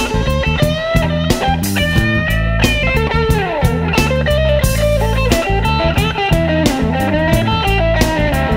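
Electric Chicago blues band music with no vocals: lead electric guitar plays bending, sliding notes over bass and drums.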